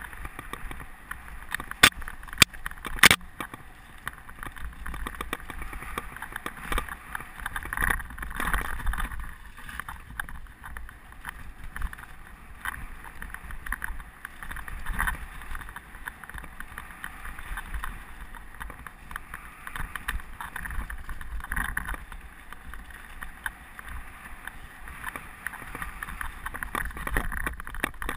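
Mountain bike descending a rough dirt trail at speed: a steady rush of wind on the microphone and tyre noise on dirt, with frequent small knocks and rattles from the bike over bumps and a few sharp clicks in the first few seconds.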